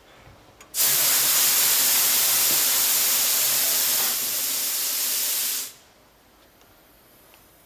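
A loud, steady hiss that starts abruptly about a second in, drops slightly a little past the middle, and cuts off suddenly.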